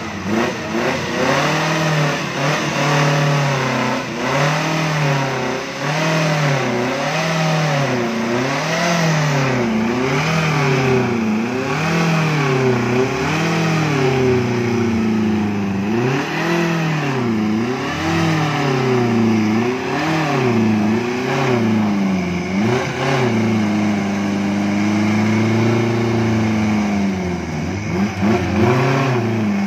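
A Suzuki off-road 4x4's engine revving up and falling back again and again, about once every second and a half, as the wheels churn in deep mud with the winch line taut. Near the end the revs are held steadier and higher for several seconds.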